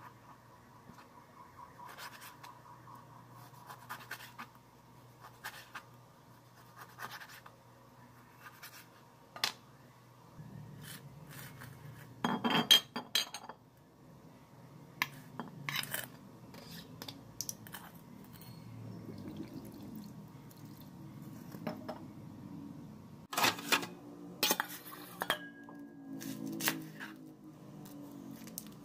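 Kitchen prep sounds: a knife slicing raw tuna on a plastic cutting board, the blade tapping the board now and then. These are followed by clinks and clatter from handling a metal mixing bowl, with a loud burst of clatter about twelve seconds in and another near the end.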